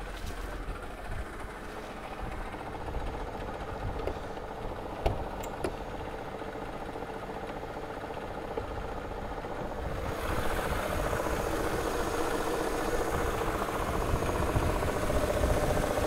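Mercedes SL500's 5.0-litre V8 idling, with a steady weird tone from the engine bay that grows louder from about ten seconds in; the owner ties the sound to the Active Body Control hydraulic pump running very low on fluid after the car was raised. A sharp click about five seconds in.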